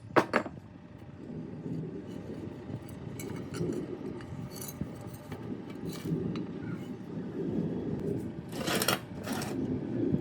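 Small metal parts clinking and scraping against each other over a steady low rumbling noise, with two louder scraping bursts near the end.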